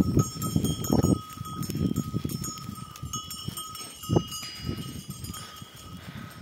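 A herd of Honamlı goats moving past, the bells on the flock ringing steadily over the low rustle of the animals, with one short sharp sound a little after four seconds.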